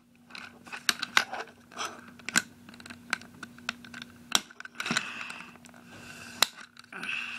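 Plastic Transformers toy car being handled and turned over in the hands: irregular sharp clicks and taps of its plastic parts as its tabs are worked at.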